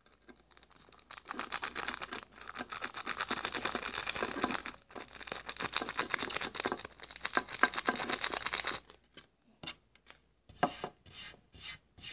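A small plastic packet crinkling and tearing as it is opened by hand: a dense run of rapid crackling for several seconds that stops abruptly, followed by a few scattered rustles near the end.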